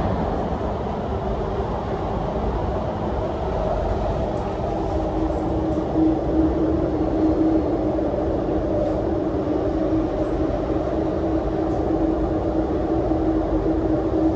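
Kinki Sharyo–Kawasaki MTR metro train running between stations, heard from inside the car: a steady rumble of wheels on the track. About four seconds in, a steady hum joins it and holds, and a few faint clicks come through here and there.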